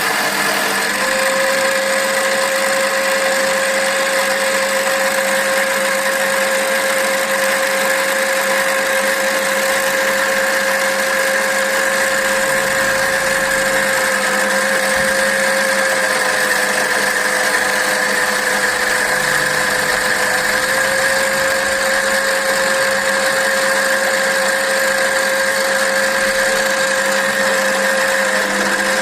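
Mini lathe running steadily with an armature turning in it, a steady whine over its motor noise.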